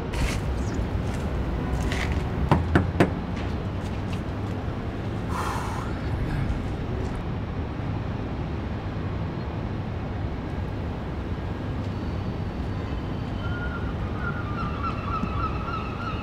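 Outdoor ambience: a steady low rumble, with a few sharp clicks about two and a half to three seconds in and a wavering high call near the end.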